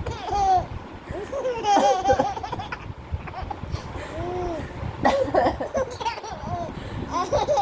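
A baby laughing in repeated short bursts with gaps between them.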